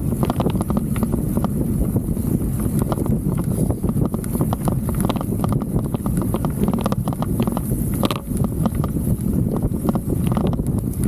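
Handlebar-mounted Insta360 X3 camera rattling in a loose mount as a mountain bike rolls over rough grass: a fast, irregular clatter over a low rumble of wind on the microphone.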